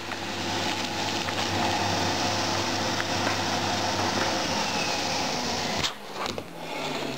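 Vacuum cleaner running steadily, sucking the air out of a plastic storage bag through a 3D-printed vacuum valve. It is switched off about six seconds in, and its motor hum dies away.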